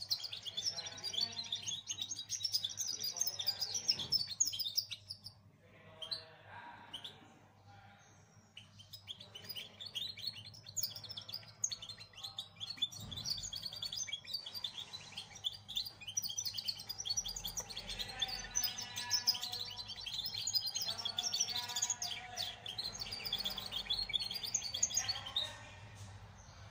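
Young European goldfinch, about two months old, singing a long practice song: rapid twittering chirps and trills with a couple of short lulls, stopping near the end. A faint steady low hum lies beneath.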